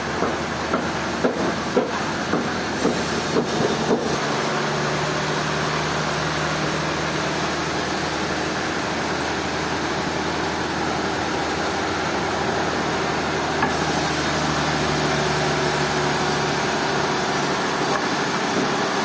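Sawmill machinery running steadily with a low hum, with a string of sharp knocks in the first four seconds.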